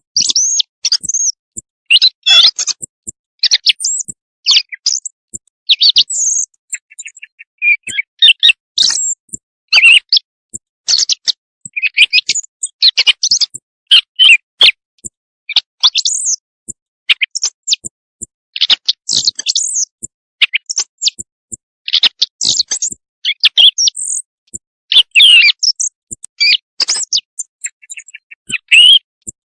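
Recorded bird calls played as a hunting lure for night-time calling: quick runs of short, high chirps and sharp notes, broken by brief clean silences and repeating throughout.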